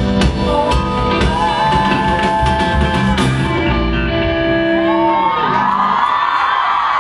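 Live band music with singing; the drum beat stops a little over three seconds in, leaving held notes, and an audience starts screaming and cheering near the end.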